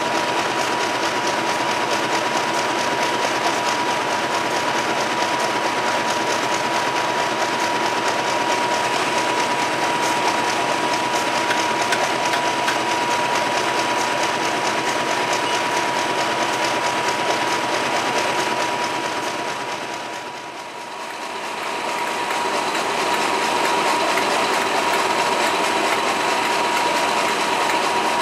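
Class 50 diesel locomotives, with English Electric 16-cylinder engines, idling at close range: a steady, fast engine clatter with a steady high whine. The sound dips briefly about two-thirds through and then returns.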